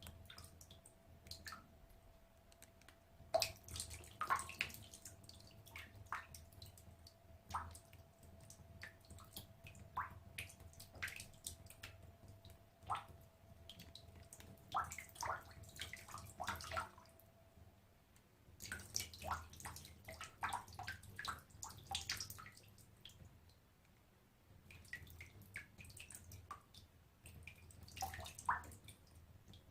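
Small water drops falling into a bathtub: irregular plinks and drips, some single and some in quick clusters, with a faint low hum underneath.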